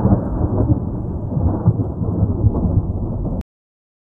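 Thunderstorm sound effect: dense rumbling thunder with a rain-like crackle, cutting off abruptly about three and a half seconds in.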